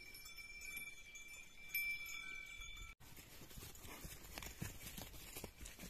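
Faint bell-like ringing tones, several pitches each held for about a second, for the first few seconds. After a sudden break, soft irregular knocks of calves' hooves stepping through grass.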